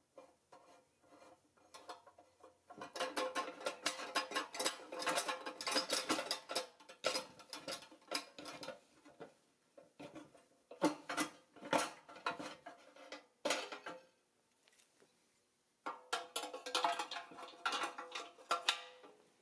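Small steel hardware clicking and clinking against the pressed-steel body of a toy loader as a bolt is fitted and turned through its lift arm. There are two long runs of rapid clicking with a few separate clinks between them.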